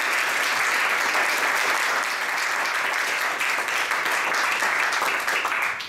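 Audience applauding, a steady round of clapping that dies away at the end.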